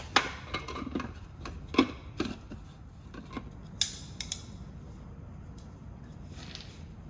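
Metal hand tools and parts clinking and knocking: a handful of sharp, irregular clicks over the first four seconds or so, then quiet work.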